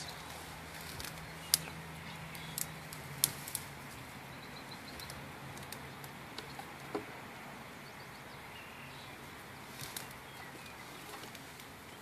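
Dry twigs and brush snapping and crackling as someone pushes through undergrowth with a box, a few sharp snaps a second or more apart.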